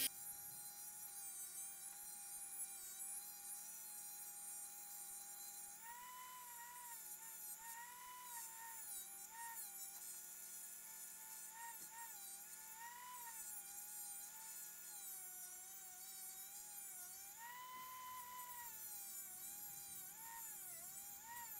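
Hand-held rotary tool with an abrasive cut-off disc cutting a slot in steel: a high, thin whine. Its pitch holds steady at first, then from about six seconds in wavers and dips again and again as the disc bites and eases off.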